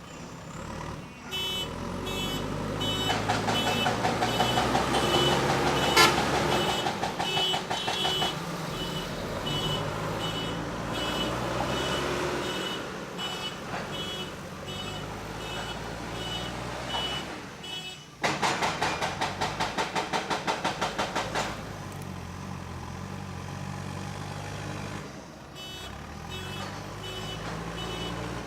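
JCB 3DX backhoe loader's diesel engine running under load, with a reversing alarm beeping at about two beeps a second through the first half and again near the end. A single sharp knock comes about six seconds in, and just past the middle a loud, fast pulsing noise lasts about three seconds.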